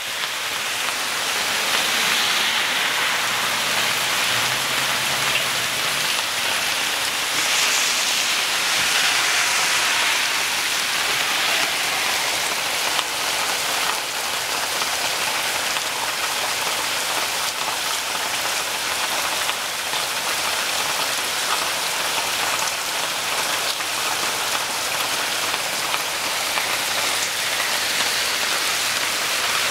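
Heavy rain falling steadily in a storm, a dense even hiss of drops striking the ground and plants.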